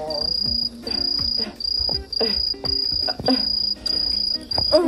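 Cricket chirping sound effect: a high, steady trill repeating about twice a second, each chirp lasting about half a second. It is the stock comic cue for an awkward silence.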